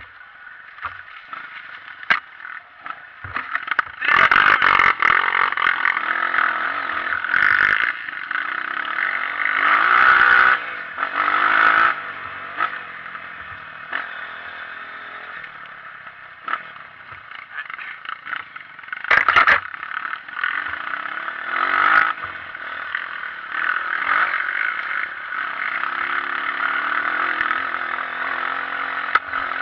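Honda CRF230 trail bike's single-cylinder four-stroke engine running and revving on a dirt trail, swelling in several louder surges, with scattered knocks and clatter from the rough ground.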